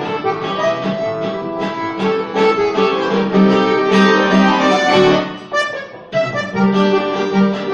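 Accordion and acoustic guitar playing together, the accordion holding sustained chords over the plucked guitar, as the instrumental introduction to a song. The music drops away briefly about five and a half seconds in, then picks up again.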